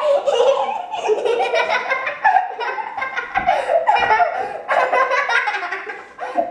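Children laughing and giggling loudly, one burst after another.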